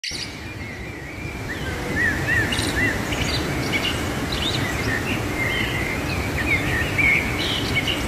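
Whitewater rushing through a narrow rock canyon in a steady roar, with small birds chirping over it. The birds give many short high chirps, including a run of three quick rise-and-fall notes about two seconds in.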